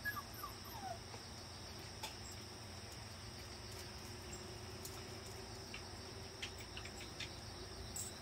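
Faint, steady high-pitched chirring of insects. In the first second a few short, falling, high squeaks come from the puppies, and faint light clicks are scattered later on.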